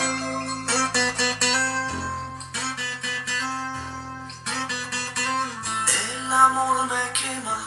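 Guitar music with plucked-string notes over steady bass, played back through a homemade TDA7269 10 W amplifier driving a bare loudspeaker.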